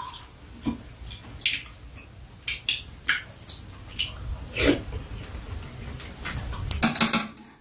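Metal spoons and chopsticks clinking and scraping against ceramic bowls during a meal, a string of separate light clicks, with a busier cluster near the end. Faint mouth noises of eating come between the clicks.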